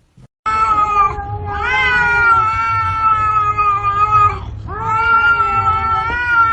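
A cat yowling: a short call about half a second in, then two long drawn-out yowls of about three seconds each with a brief break between them.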